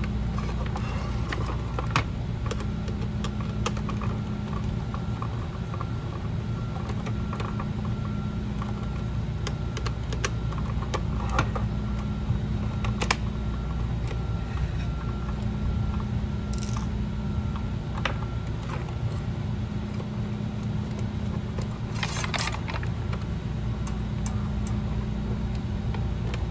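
Scattered small clicks and taps of a screwdriver and hard plastic parts as screws are taken out of the bottom of a toy RC tank, over a steady low background hum. A short rustle comes near the end.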